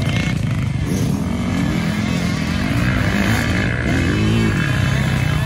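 Dirt bike engines revving on a hill climb, their pitch rising and falling several times as the riders work the throttle.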